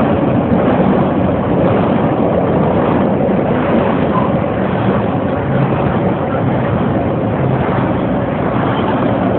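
Freight train's cars rolling by on the track, a steady noisy rumble.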